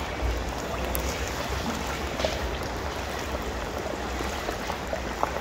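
Hot cooking oil sizzling steadily in a giant plov kazan as large chunks of meat are dropped in to fry, with a few small pops.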